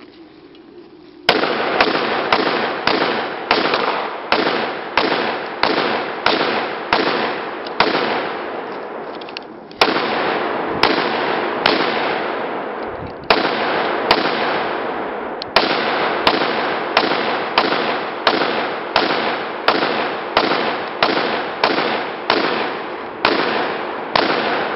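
Rapid gunfire: a long string of rifle shots, about two a second, each with a short echoing tail, starting about a second in and broken by a few brief pauses.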